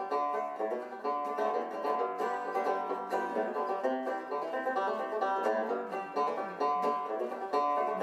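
Instrumental music: a quick, busy run of plucked string notes with no singing.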